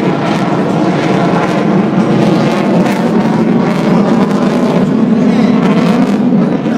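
Fighter jet engine noise, loud and steady, from a jet flying past in an aerobatic display.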